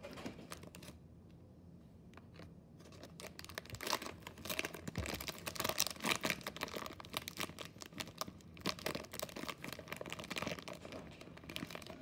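Plastic candy packaging crinkling and rustling as hands reach in to pull out gummies. The crinkling is sparse at first and becomes dense and continuous from about three seconds in.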